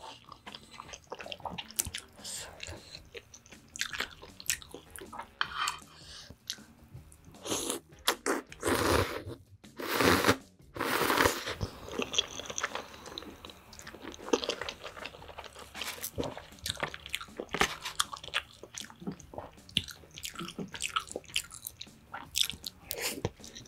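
Close-miked eating of spicy instant ramen noodles: steady chewing and wet mouth clicks, with two longer slurps about eight and ten seconds in.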